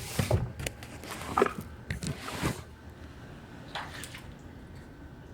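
Footsteps squelching on flood-soaked flooring: several uneven wet squishes in the first two and a half seconds, then one more about four seconds in.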